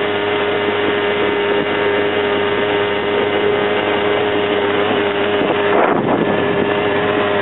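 ATV engine running steadily as it climbs a dirt track, a constant drone with a strong steady tone. Wind buffets the microphone, with a brief louder rush about six seconds in.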